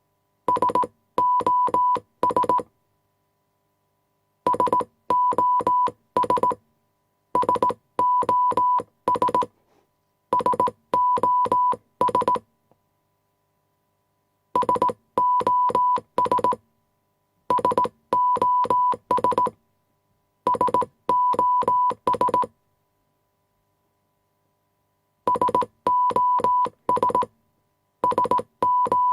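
Morse code beeps: a single high steady tone keyed on and off in short dots and longer dashes. The signal comes in groups of characters separated by silent pauses of a second or more.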